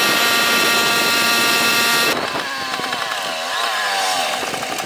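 Moped engine running at steady high revs with a buzzing, many-toned note. After about two seconds the sound changes and the pitch wavers up and down as the revs rise and fall.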